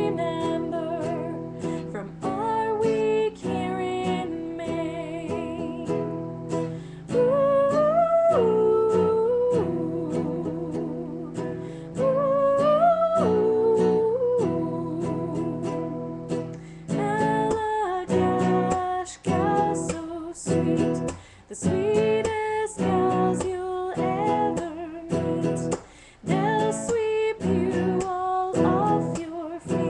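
A song sung to strummed acoustic guitar, the voice holding long notes with vibrato. About halfway through, the strumming turns choppier, with short breaks between strokes.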